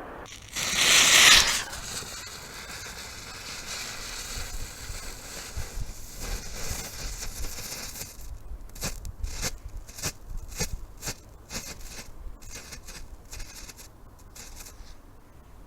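Fireworks: a loud hissing rush about half a second in, then a fainter lingering hiss, and from about halfway a run of sharp crackling pops that thins out near the end.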